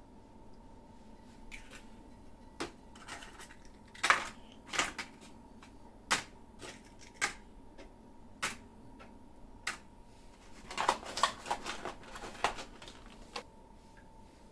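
Eggshells tapping and clicking as eggs are separated over glass bowls and the broken shells are set into a clear plastic egg tray, a sharp tap every second or so. Near the end comes a denser run of plastic crackling and rattling as the tray and shells are gathered up.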